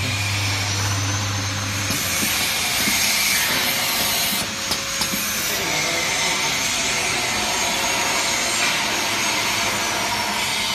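Ice cream cup filling and sealing machine running with a steady hiss, a low hum that stops about two seconds in, and a couple of sharp clicks near the middle.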